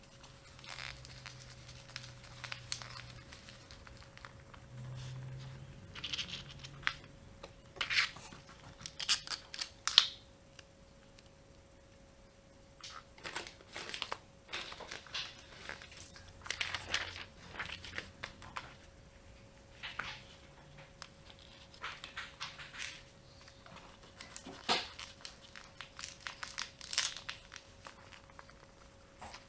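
Sheets of printer paper being rolled tightly by hand into a tube, rustling and crinkling in irregular bursts.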